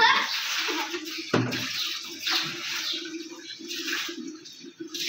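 Water splashing and sloshing in a plastic tub as hands wash in it, in uneven bursts, with one sharp knock about a second and a half in.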